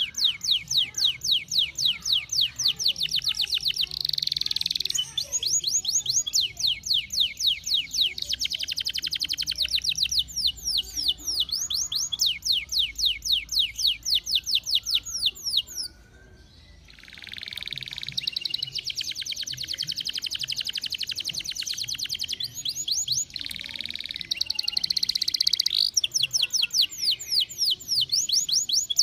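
Domestic canary singing a long song of fast trills, each a rapid run of repeated high notes, broken by a short pause a little past halfway.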